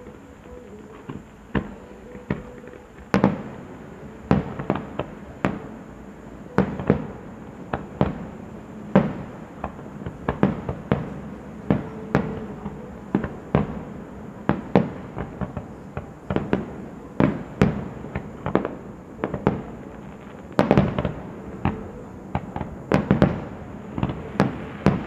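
Aerial fireworks shells bursting: sharp bangs and cracks, few in the first three seconds, then coming about one or two a second, with a quick cluster of bangs late on.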